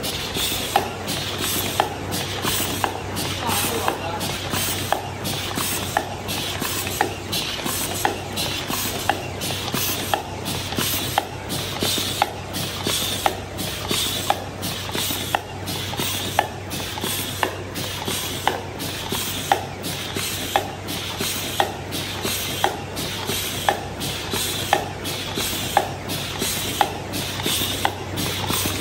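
MG-HC60 double-wall paper cup machine running. A steady motor hum and hiss, with a sharp mechanical clack repeating evenly about once a second as the machine cycles.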